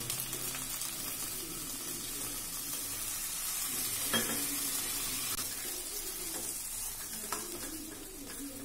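Masala paste sizzling and bubbling in a kadai just after water is poured in, with a steady hiss. A steel ladle stirs and knocks against the pan a few times.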